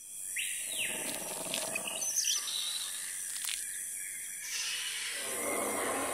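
Bird-like chirps and calls, with a falling call near the start and a sharp click about three and a half seconds in; a fuller, rushing sound comes in about four and a half seconds in.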